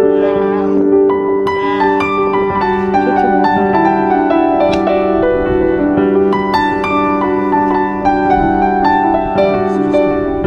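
Background music: a string of gently plucked notes over steady held chords.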